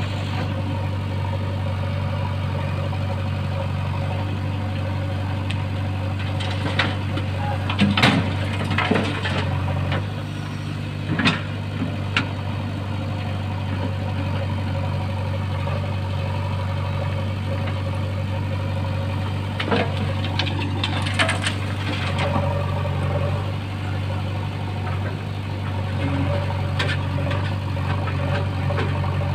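JCB backhoe loader's diesel engine running steadily while its backhoe digs and swings. Scattered knocks and clatter of the bucket and stones come on top, loudest about eight and eleven seconds in and again around twenty seconds.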